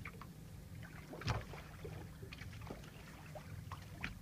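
Steady low hum of the fishing boat's engine, with scattered knocks and clicks on board; the loudest knock comes about a second in.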